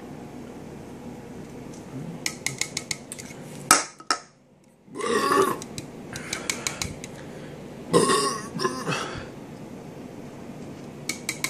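A man belching loudly twice between gulps of canned beer, the second belch about three seconds after the first. Quick clicks and a sharp knock from the can and phone being handled come before them.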